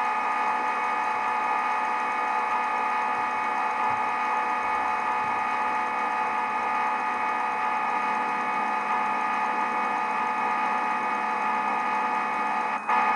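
Simulated spindle and machining sound of the SwanSoft CNC simulator's vertical machining centre as the virtual tool cuts the profile: a steady, unchanging hum.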